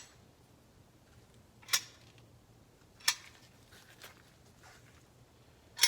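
Three sharp metallic knocks, about a second and a half apart, from a loose part shifting inside a Jaguar Mk2 Compact A overdrive unit. It sounds like the accumulator piston sliding in its bore.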